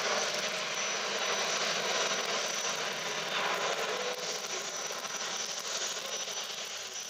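Jet noise from an Airbus A380's four turbofan engines as the airliner banks away overhead: a steady rushing sound with a thin high whine, fading over the last couple of seconds as it recedes.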